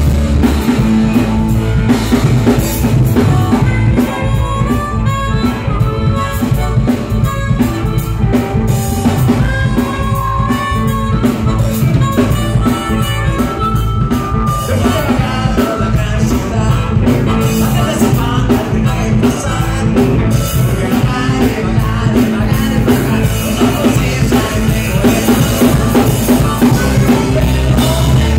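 Live band playing blues-rock: drum kit, bass and electric guitar, with a lead part played or sung into the microphone.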